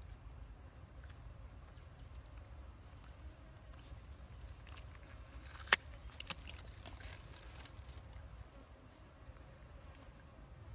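Outdoor ambience: a steady low rumble with a faint high insect-like buzz, and one sharp click a little past halfway, followed by a few softer clicks.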